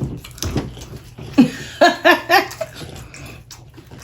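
Short high vocal sounds without words: one rising-and-falling call about a second and a half in, then a quick run of four or five short arched notes.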